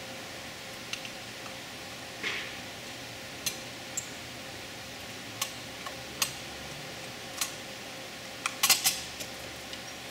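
Light metallic clicks and clinks as the lid of a Quadrajet four-barrel carburetor is fitted and seated onto the carburetor body. There is a short scrape about two seconds in and a quick cluster of clicks near the end, over a steady faint background hiss.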